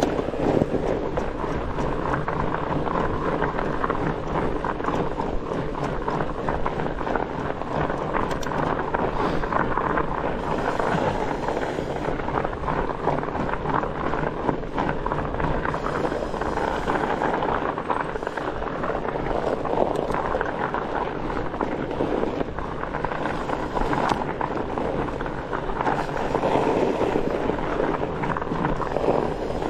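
Steady riding noise from a studded fat bike rolling over an icy trail: tyre noise with many small clicks and rattles, and wind on the microphone.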